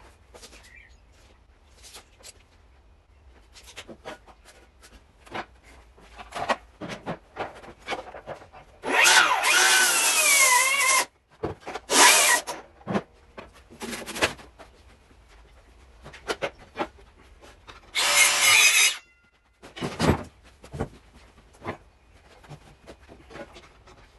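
Power tool cutting oak in several short bursts, the longest about two seconds with its motor pitch wavering under load, between scattered knocks and taps of tools and timber being handled.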